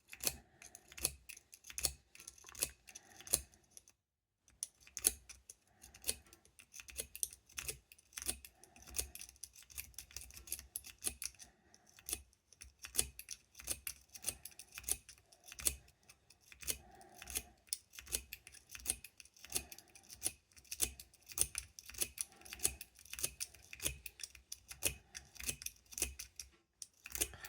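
A McTickler lock pick working in a padlock's keyway: rapid, irregular small metal clicks and scrapes as the pick is worked against the pins, pausing briefly twice.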